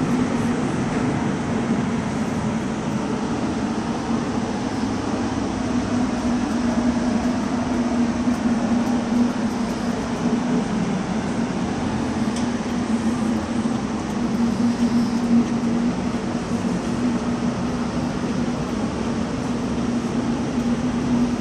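Paint-shop machinery running steadily: a constant low hum with an even rush of air over it, unchanging throughout.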